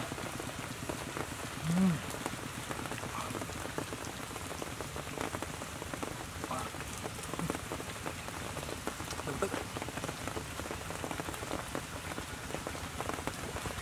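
Steady pattering like rain falling on leaves, with a short low hum from the man eating about two seconds in.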